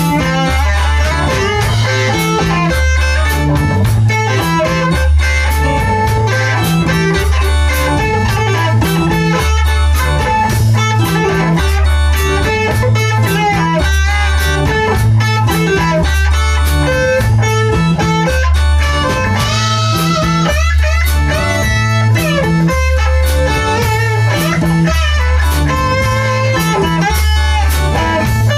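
Rock music with electric guitar over a repeating bass line and a steady drum beat.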